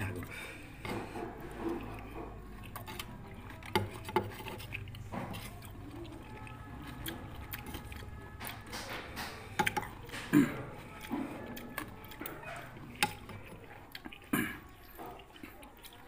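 Metal spoons scraping and clinking against a cobek mortar dish while fruit rujak is eaten from it, with a few sharp clicks scattered through.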